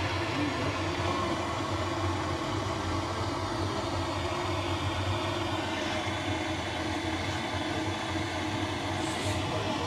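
Hand-held propane torch burning steadily, its flame held against cardboard and kindling in a wood stove's firebox to light the fire.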